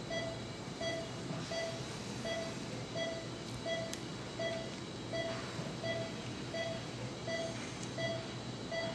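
Operating-theatre patient monitor beeping steadily with the anaesthetised patient's pulse: a short mid-pitched beep about three times every two seconds, over a steady low hum.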